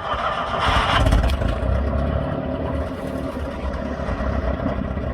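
A motor vehicle's engine running steadily, louder for a moment about a second in.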